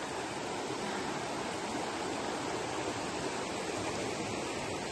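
Flowing stream water running with a steady rush.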